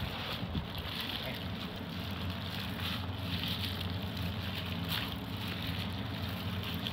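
A steady low hum with an even background noise, like a small motor or fan running, with a couple of brief faint rustles in the middle.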